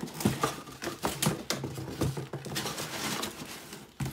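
A cardboard box being handled: an inner cardboard insert is shifted, scraped and knocked about inside a large shipping box, giving a run of irregular knocks and rustles.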